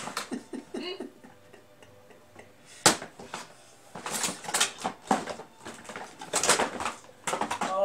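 Wrapping paper being torn and rustled as a present is unwrapped, in a run of short crackly bursts, with a sharp knock about three seconds in.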